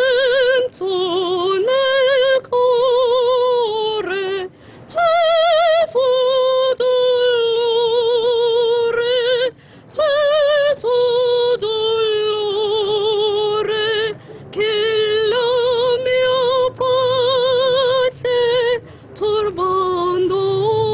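A woman singing solo and unaccompanied, holding long notes with a wide, steady vibrato, in phrases separated by short breaths.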